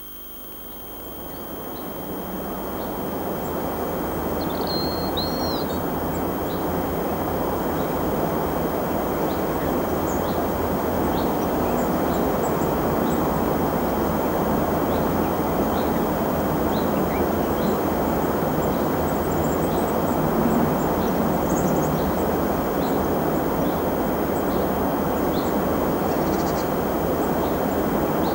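Steady rush of a waterfall, fading in over the first few seconds, with small birds chirping faintly above it and one clearer call about five seconds in.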